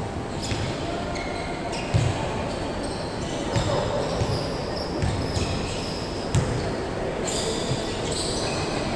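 A ball thudding on a hardwood gym floor, four dull bounces about a second and a half apart. Short high squeaks of sneakers on the court are heard between them.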